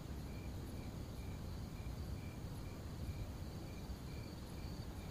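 Crickets chirping in an even rhythm, about two chirps a second, over a low steady rumble.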